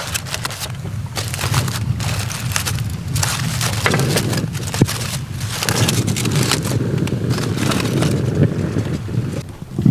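Aluminium foil crinkling and crackling in irregular bursts as a foil packet is folded shut by hand, over a steady low rush. The packet is being resealed to cook a little longer.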